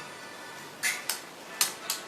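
Spoon clinking against a plate, four sharp clicks in the second half, over faint background music.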